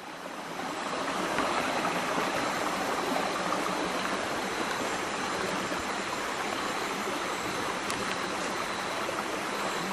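Steady rushing of a forest stream, swelling in over the first second and then holding even.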